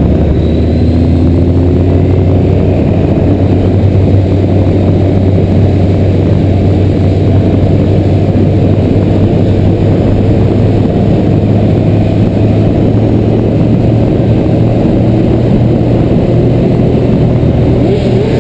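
Motorcycle engine running steadily at an even pitch while riding along, over a dense low rumble of road and wind noise.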